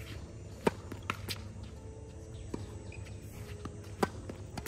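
Tennis racket striking the ball on the serve, one sharp crack less than a second in. A few fainter knocks follow, and a second serve strike comes about three seconds later, near the end.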